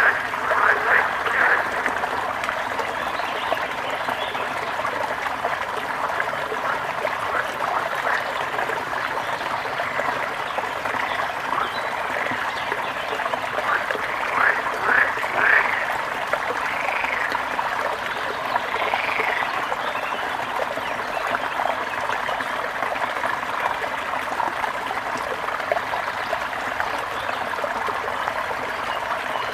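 A small river or stream running steadily, with short animal calls over it that come in clusters near the start and around the middle, then two separate arched calls a few seconds later.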